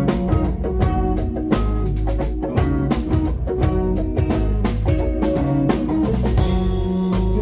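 Instrumental passage of a song: a steady drum-kit beat with a deep bass line and plucked guitar. A brief noisy swell comes near the end.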